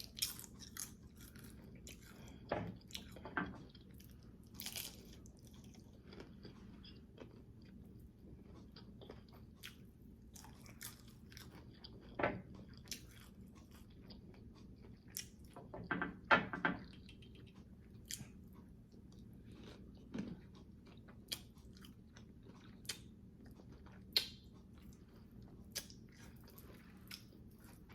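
Close-up chewing and biting of crunchy low-carb taco shells: scattered crunches and mouth clicks, with the loudest bites about 12 and 16 seconds in.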